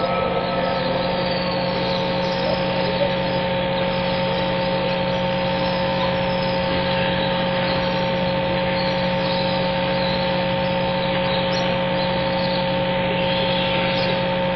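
Steady hum and hiss of a large mosque's ambience through open broadcast microphones, with a low electrical buzz and a few fixed tones; no voice.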